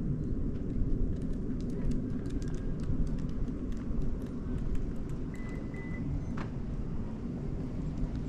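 Outdoor ambience: a steady low rumble with scattered faint clicks, and a brief high steady tone about five seconds in.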